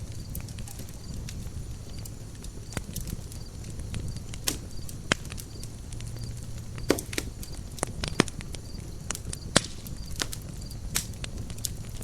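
Campfire burning: wood crackling with irregular sharp pops, a few louder than the rest, over a low steady rumble.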